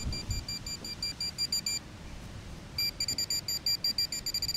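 Handheld metal-detecting pinpointer beeping in short, high-pitched pulses that quicken as the probe closes in on a buried target. The beeps stop for about a second in the middle, then speed up again until they nearly merge into one steady tone.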